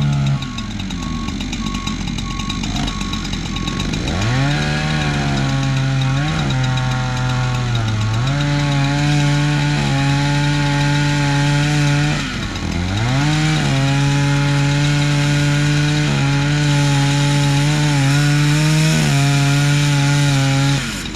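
Chainsaw cutting into a tree to fell it, running at high revs. It eases off and revs back up several times, with one deep dip about halfway through.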